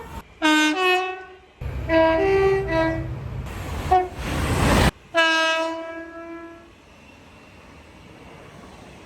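Locomotive air horns sounding a series of short multi-note chords, with abrupt cuts between them. A rising rush of noise comes between about three and a half and five seconds in, and a last chord near the middle fades out.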